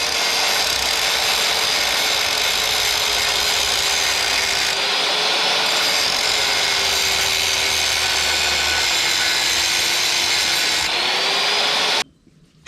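Power tool running steadily under load for about twelve seconds, its pitch sinking slightly, then cutting off suddenly.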